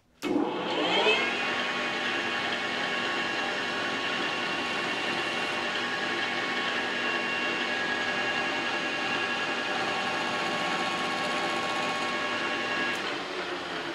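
Metal lathe starting up, its gear drive whining up to speed over about a second, then running steadily with a several-toned gear whine that eases off near the end.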